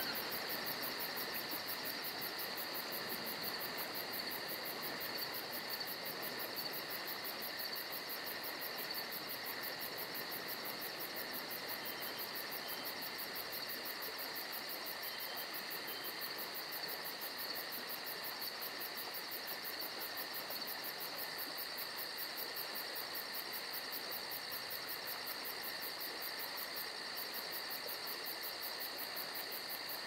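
Electronic fixed-media music: a steady hiss with two held high tones and a fast, even pulsing high above them.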